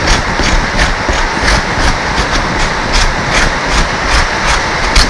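Kitchen knife chopping moringa pods on a wooden cutting board, about three cuts a second, over a loud steady hiss: distortion the uploader puts down to a pacemaker near the microphone.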